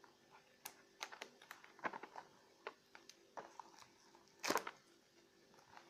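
Hands handling a cardboard box of pastels: scattered light clicks and rustles of the box and its wrapping, the loudest about four and a half seconds in.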